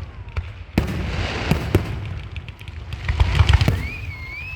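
Fireworks going off: several sharp booms, with bursts of crackling about a second in and again about three seconds in. Near the end there is a wavering whistle.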